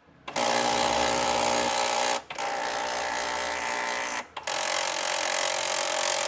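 HP Deskjet F4480 inkjet printer's carriage motor driving the print carriage, which catches on the printer housing and makes a loud mechanical grinding whine: the carriage is misaligned. The noise comes in three runs with brief stops about two and four seconds in.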